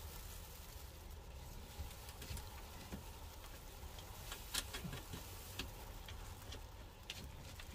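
Faint, irregular clicks and light taps of hand tools working on the roof-rail screws from inside a van, over a low steady rumble. The sharpest click comes about halfway through.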